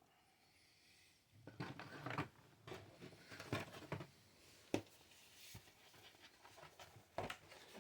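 Board-game cardboard pieces and packaging being handled, with scattered soft rustles and several sharp clicks and taps, starting about a second and a half in.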